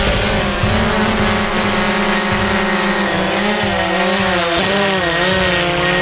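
Quadcopter drone's propellers whining as it hovers and sets down on a car roof, the pitch dipping and rising several times as the motors adjust thrust.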